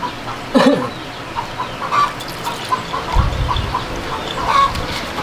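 Chickens clucking in the background, many short calls scattered throughout, with a brief low rumble about three seconds in.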